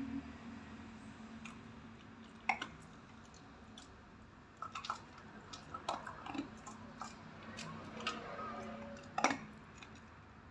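A dog eating dry kibble from a metal bowl: irregular crunching and clicking as it chews, with two sharper crunches, about two and a half seconds in and near the end.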